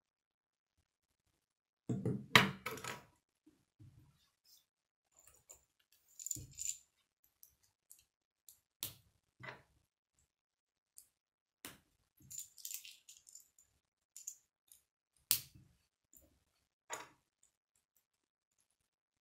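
Plastic K'nex pieces clicking and rattling as they are handled and snapped onto rods: a burst of clattering about two seconds in, then scattered single clicks and short rattles with quiet between.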